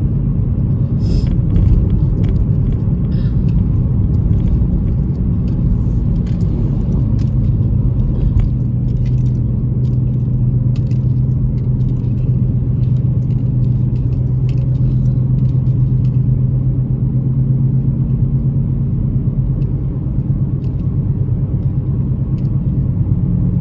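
Car engine and road noise heard from inside the cabin while driving: a steady low rumble with an engine hum that shifts slightly in pitch, and scattered faint clicks and rattles.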